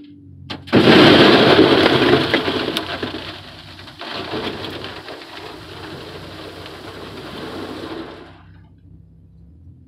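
About one cubic yard of crushed stone pouring from a front-end loader's bucket into the bed of a Ford F-150 pickup, heard from inside the truck's cab. A loud rattling rush starts suddenly about a second in, surges again about four seconds in, and dies away near the end as the bucket empties.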